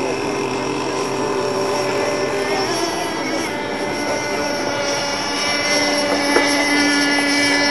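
Engines of several radio-controlled racing power boats running flat out, overlapping high buzzing whines that shift in pitch as the boats pass, growing louder in the second half.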